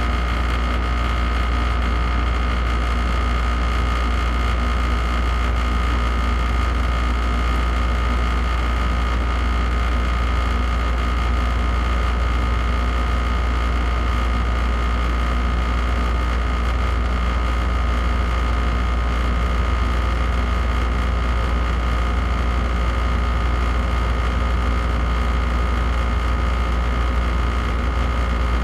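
Air conditioner running on its high setting: a steady, strong low hum with a faint whine on top and an even rush of blown air, unchanging throughout.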